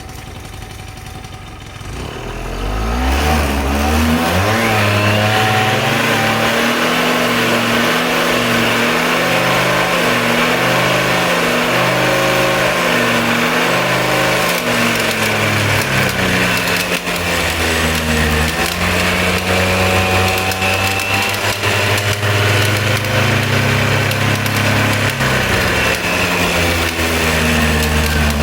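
Suzuki Let's 2 scooter's small two-stroke engine running and revved, its pitch climbing about three seconds in and then rising and falling. A rattling, grinding noise comes from the kick-start side gear making contact: a fault that can be mistaken for a stone caught in the drive.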